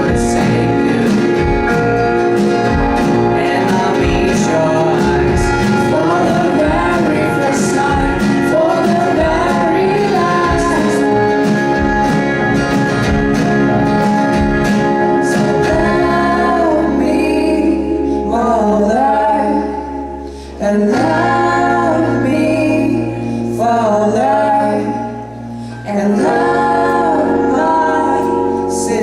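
A band playing a song with a singer. Drums and full accompaniment carry the first half; about halfway through, the drums drop out, leaving held bass and chords under the voice.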